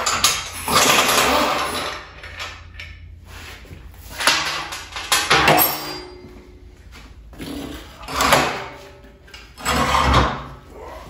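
Heavy old air-cooled engine being shoved and dragged across a steel workbench top: several separate scraping, sliding bursts with metal clunks, the loudest near the end as it is hauled toward the edge of the bench.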